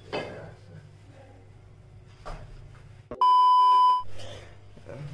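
A censor bleep: one steady, pure high beep lasting under a second, a little past the middle, with the room sound cut out beneath it. Faint knocks of handling are heard before it.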